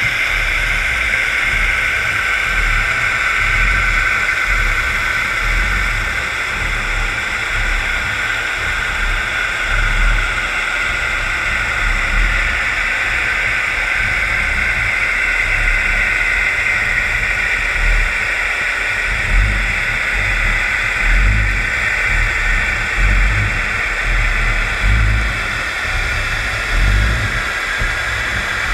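Steady underwater rushing hiss with an uneven low rumble, heard through a GoPro's housing on a scallop dredge as it is towed and hauled through the water.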